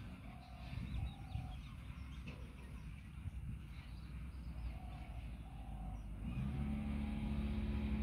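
Rural outdoor ambience with a low rumble and short repeated bird calls. About six seconds in, the steady engine hum of a passing motor vehicle rises and grows louder.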